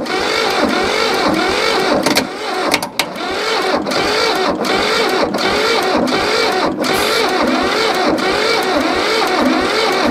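The starter on a Hinomoto E230 diesel tractor cranks the engine continuously with a slow rhythmic rise and fall, and the engine never catches. It kicks in with a click and drops out briefly a few times.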